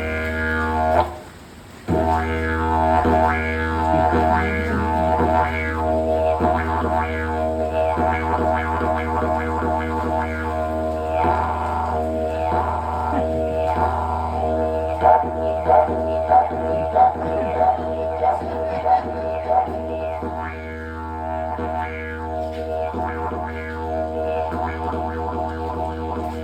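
Didgeridoo playing a continuous low drone, imitating kangaroos dancing with a steady run of rhythmic accented pulses. The drone drops out briefly about a second in. The pulses come sharpest and loudest around the middle.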